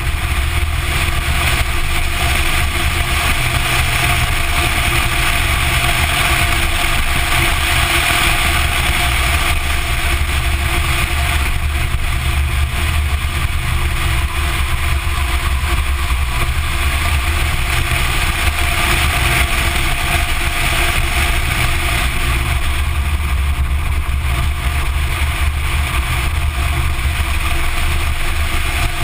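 Porsche 944 Turbo driven at an easy, steady pace, heard from a camera mounted outside on the front wing: steady wind rush on the microphone and tyre and road noise over the running engine, with no sharp revving.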